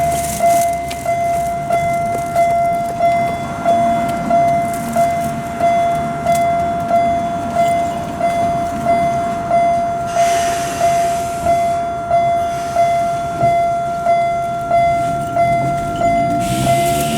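A Japanese level crossing's bell ringing steadily in a single clear tone, about one and a half strikes a second. A hiss comes in about ten seconds in and again near the end, where an electric train's motor whine rises in pitch.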